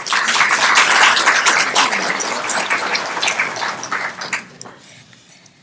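Audience applauding, starting at once, loudest in the first two seconds, then dying away over about five seconds.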